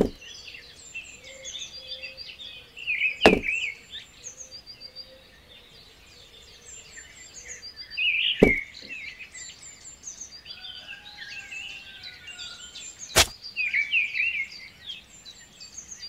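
Birds chirping and twittering steadily, with three sharp knocks standing out about five seconds apart.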